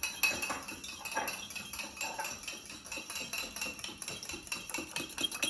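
A raw egg being whisked in a microwave-safe mug: a utensil clinking rapidly and repeatedly against the inside of the mug, getting louder near the end.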